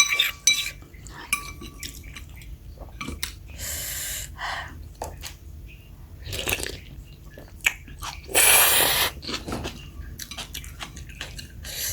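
Someone eating bakso meatball soup: spoon clinks against the bowl, with brief ringing, mixed with chewing and mouth noises. Two longer slurps of about a second each, the louder one about eight and a half seconds in.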